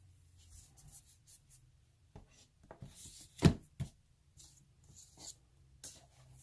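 Cardboard board-game components being handled and set into a box insert: scattered rustles and light taps, with one sharp knock about three and a half seconds in and a smaller one just after.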